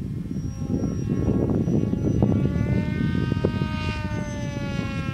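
Motor and propeller of a Zagi flying-wing model plane whining in the air. The tone comes in about two seconds in, rises slightly, then drops in pitch as the plane passes, over steady wind rumble on the microphone.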